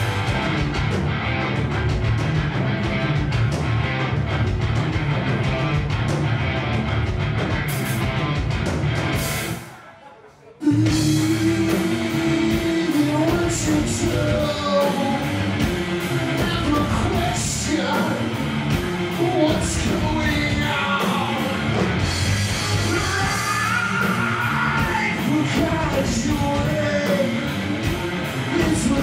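Live hard rock band of distorted electric guitars, bass and drums playing loud, with a male singer singing and shouting into the microphone. About ten seconds in the music cuts out abruptly for about a second, then the full band crashes back in under the vocals.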